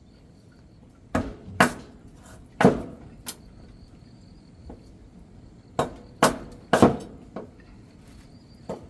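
About ten sharp knocks at an uneven pace, some coming in quick pairs: something being struck or chopped repeatedly.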